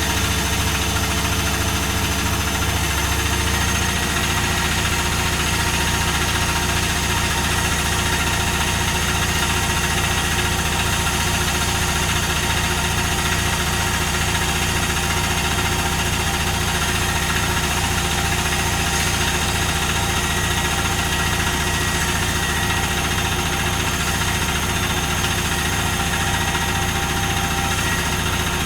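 Privileg Dynamic 4612 washing machine spinning its drum at high speed, with a steady whine and a fast, even hum. The pitch climbs over the first few seconds and then holds steady, as in the high-speed spin near the end of the programme (1200 rpm set).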